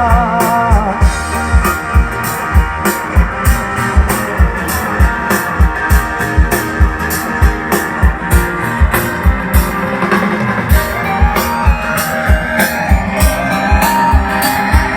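Live band's instrumental break: a drum kit keeps a steady beat of about two kicks a second under guitar and other instruments, played through a PA system. The singer's last held note, with vibrato, fades out about a second in, and a lead line slides upward near the end.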